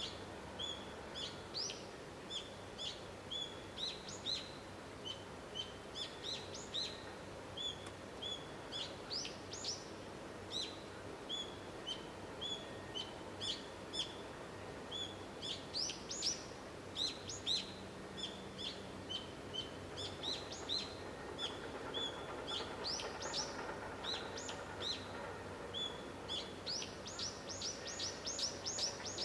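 Small birds chirping: a steady string of short, sharp chirps, with a quicker run of rapid chirps near the end, over faint outdoor background noise.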